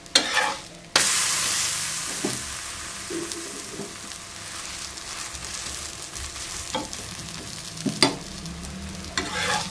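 Laccha paratha frying on a hot tawa. The sizzle starts suddenly and loud about a second in, then slowly dies down, with a few short knocks around it.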